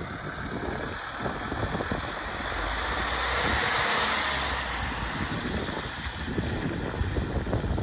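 Wind buffeting the microphone, with a rushing hiss that swells and fades about four seconds in.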